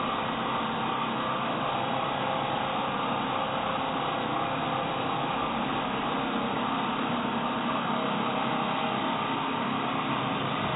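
Angle grinder cutting through steel all-thread rod, a steady, unbroken grinding.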